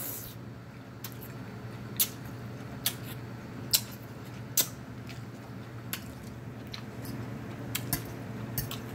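Close-miked chewing and lip smacking on a mouthful of lo mein noodles, with short wet mouth clicks about once a second over a faint steady hum.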